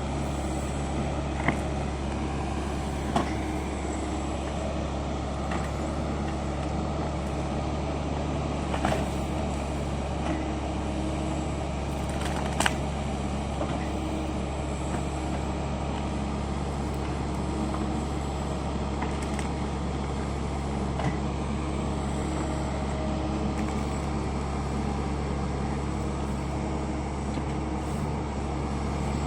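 Lovol FR60 mini excavator's diesel engine running steadily, with a few short sharp knocks from the machine along the way.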